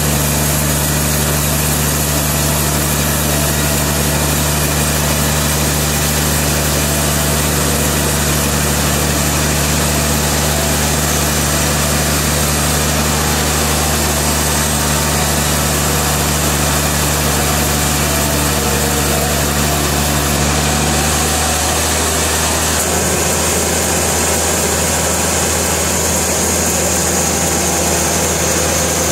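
Sawmill machinery running: a steady engine drone with a broad noisy rush above it, its low hum shifting about three-quarters of the way through.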